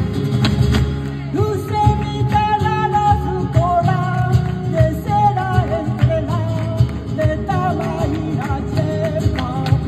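Live flamenco rumba: a cante singer's voice comes in about a second and a half in, with a wavering, ornamented melody over strummed flamenco guitars, with handclaps (palmas) and percussion keeping a steady beat.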